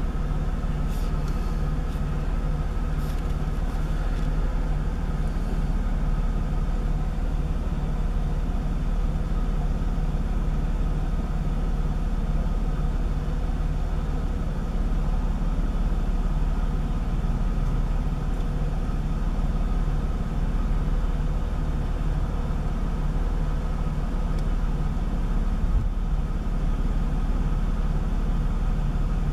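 Jaguar X-Type's 3.0-litre V6 engine idling steadily at about 730 rpm, heard from inside the cabin.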